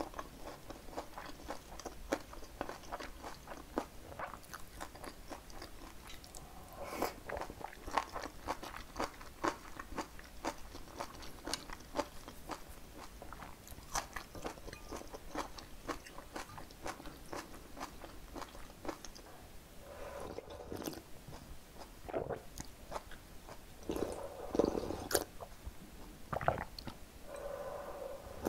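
Close-miked chewing of fresh napa cabbage kimchi, with many quick, crunchy bites in close succession. Toward the end come sips and swallows of perilla seed soup broth.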